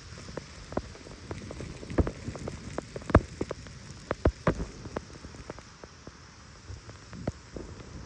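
Blizzard wind hissing steadily, with irregular sharp taps and clicks, the loudest a few seconds in.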